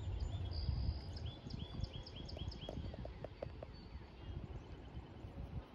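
Wind rumbling on the microphone for about the first second, then a songbird singing a quick series of repeated high notes, with a short run of soft ticks about three seconds in.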